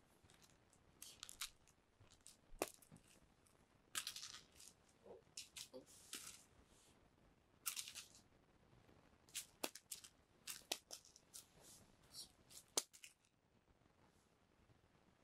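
A cat playing among its toys: faint, irregular scratchy rustles and sharp clicks, with a quieter spell near the end.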